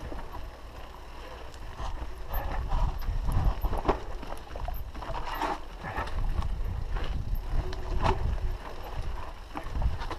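Downhill mountain bike rolling over rock and dirt, the frame and chain clattering and knocking on each bump, with wind buffeting the microphone.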